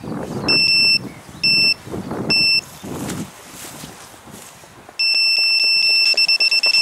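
Electronic bite alarm on a feeder rod sounding a bite: three separate high beeps in the first three seconds, then a fast, almost unbroken run of beeps from about five seconds in, the sign of a fish taking line.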